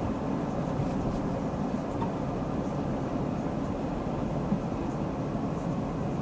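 Steady road and engine noise of a car driving at low speed, heard from inside the cabin.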